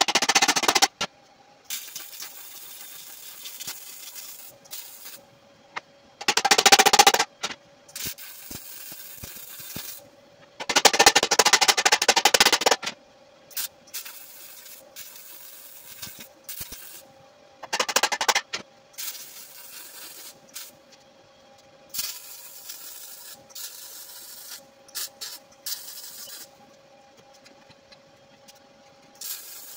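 Power tools working steel exhaust pipe: several loud grinding and cutting bursts a few seconds long, with quieter scraping and rubbing between them.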